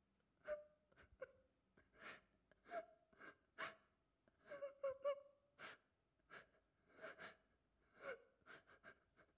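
A young woman sobbing: a string of short gasping breaths, about two a second, some with a brief wavering whimper in them.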